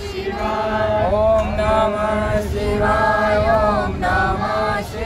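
A group of voices chanting a devotional Hindu chant together in unison, with long held notes that glide up and down and break briefly for breath twice near the end.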